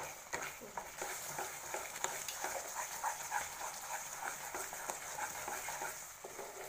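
A wooden spatula stirring thick, nearly done amla halwa in a non-stick pan, with many short, irregular scrapes and squelches and a faint steady hiss underneath.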